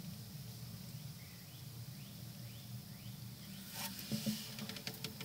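Faint outdoor background with a steady low hum, then a short burst of rustling and clicking through the grass about four seconds in as a wooden stick is moved near the snake.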